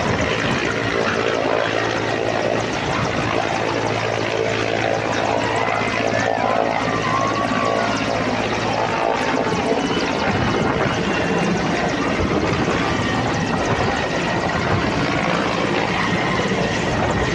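Mi-17-type twin-turbine military transport helicopter lifting off and climbing away overhead: loud, steady rotor chop and turbine noise. A low steady hum under it drops away about halfway through as the helicopter moves off.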